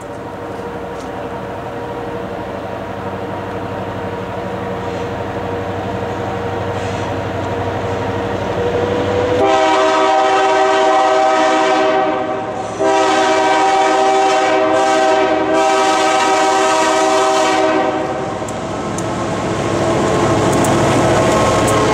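EMD GP9 diesel locomotive approaching under power, its engine growing steadily louder. About nine seconds in it sounds its air horn in two long blasts, the second longer, and the engine and train noise rise again after the horn as it draws close.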